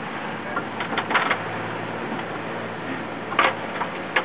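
Charter boat's engine running with a steady low drone while trolling. Short bursts of clicking rattle come about a second in, again past three seconds, and once more near the end.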